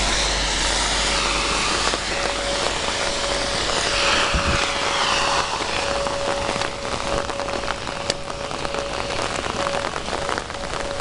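A tornado warning siren sounds a steady single tone over the hiss of falling rain, with scattered raindrop ticks from about halfway through.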